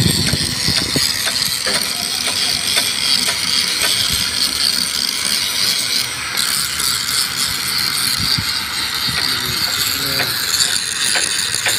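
Handheld electric grinder running against a rusty steel rail, scouring off rust: a steady high whine over a rasping scrape with frequent small clicks as the tool bites and skips on the metal.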